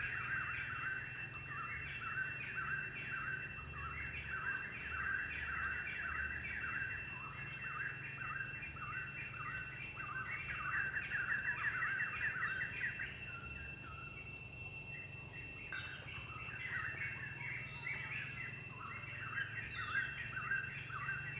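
Forest wildlife chirping rapidly and continuously, many short high chirps overlapping, over a steady high thin whine; the chirping thins out briefly about two-thirds of the way through.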